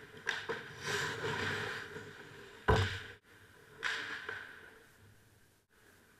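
Ice hockey play heard from beside the goal: skate blades scraping and carving the ice in hissing swishes, with one sharp knock of a puck or stick hit about two and a half seconds in.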